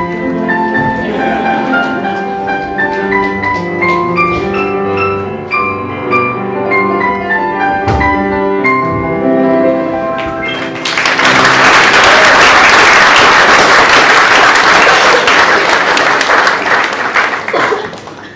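Instrumental music with a melody of quick, bright pitched notes. About eleven seconds in it gives way to loud audience applause, which fades out near the end.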